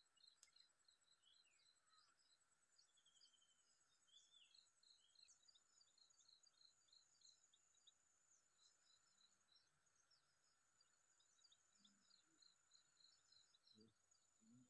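Very faint insect and bird chorus: insects chirping in an even run of about three pulses a second over a thin, continuous high buzz, with scattered short bird calls. A single faint click comes just after the start.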